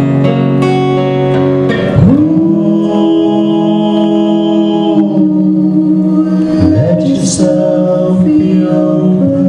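A woman singing a slow song to strummed acoustic guitar, holding one long note for about three seconds from about two seconds in.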